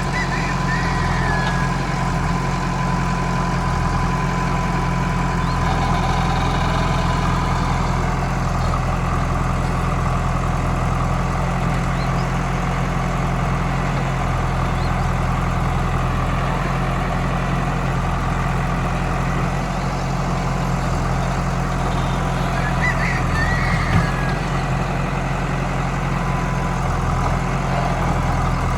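Backhoe loader's diesel engine running steadily, with a single sharp knock a few seconds before the end.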